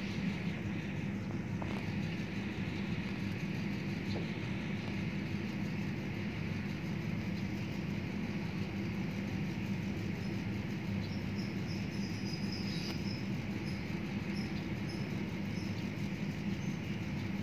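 Battered kepok banana fritters deep-frying in a wok of hot oil: a steady sizzle and bubbling, with a low hum underneath.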